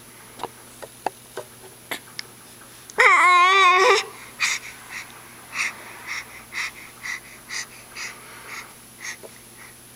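Baby vocalizing: a few small clicks, then about three seconds in one loud, wavering squeal lasting about a second. It is followed by a string of short breathy huffs, about two a second.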